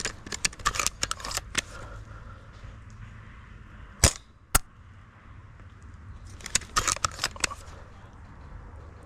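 Airsoft guns firing: a quick run of sharp pops early on, two loud single cracks half a second apart a little after four seconds in, and another run of rapid pops around seven seconds in.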